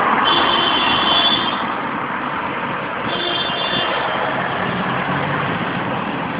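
A steady, loud engine-like drone, with a high whine joining in twice for about a second each time.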